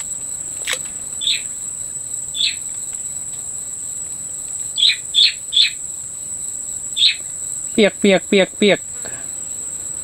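Steady, high-pitched insect drone from the swamp vegetation. Short falling chirps cut through it every second or so, three come in quick succession about halfway, and a fast run of four pitched calls comes near the end.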